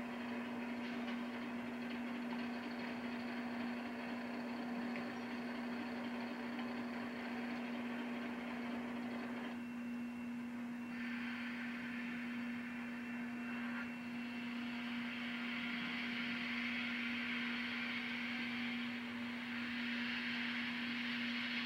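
Steady electrical hum under muffled locomotive sound in a rail yard. About ten seconds in, the sound changes to the hiss of a steam locomotive venting steam as it moves slowly.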